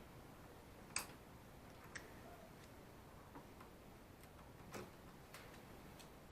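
A few faint, scattered clicks and light taps, irregularly spaced, over near silence.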